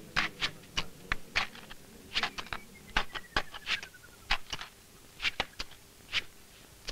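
A run of irregular sharp clicks and knocks, two or three a second, with a faint slowly falling tone near the middle.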